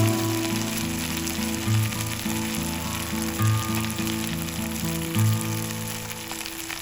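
Food frying in oil in a pan, a steady sizzle with fine crackle, over soft background music of low sustained notes.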